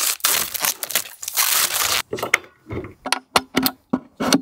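Plastic packaging rustling and crinkling as an amplifier is unpacked, followed by a series of sharp separate clicks and knocks as speaker-cable connectors are pushed into the back of a speaker.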